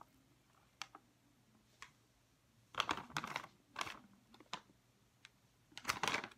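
Plastic snack packet crinkling as it is handled: a few faint crackles, then louder bursts of crackling around the middle and again near the end.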